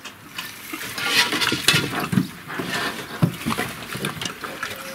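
Pigs, a sow and piglets, eating dry pellet feed from a trough: an irregular run of crunches and clicks as they chew and root through the pellets, with a few louder knocks.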